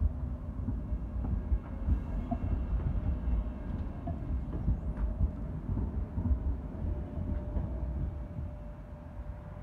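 Siemens-Duewag articulated tram of the Sheffield Supertram passing close by on a curve: its wheels rumble on the rails, with scattered clicks and a faint steady hum. The rumble eases off near the end as the tram moves away.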